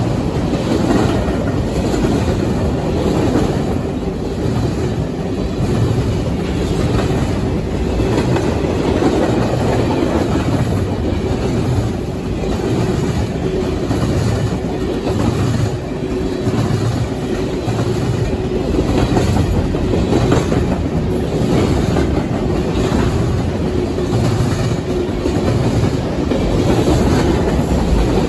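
Freight train cars of tank cars and boxcars rolling past close by: a steady rumble of steel wheels on rail, with repeated clicking as the wheels cross rail joints and a faint steady tone over it.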